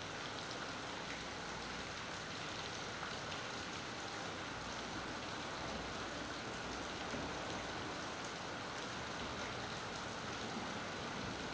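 Steady rain falling, an even hiss with faint scattered ticks of individual drops.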